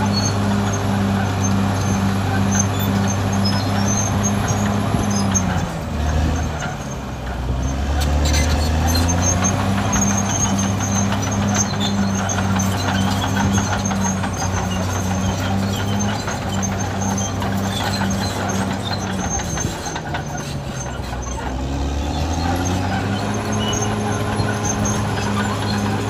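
Diesel engine of a Caterpillar D6R XL bulldozer running steadily at work. Its note drops and climbs back twice, about six and twenty seconds in.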